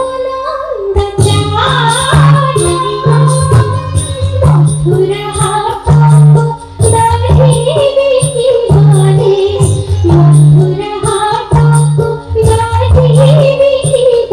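Odia devotional song sung with instrumental accompaniment, the music for an Odissi dance: a bending vocal melody over steady rhythmic percussion.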